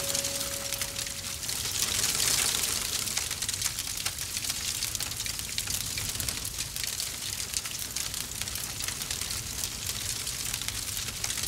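A fire crackling and hissing, with a dense run of small pops, loudest about two seconds in.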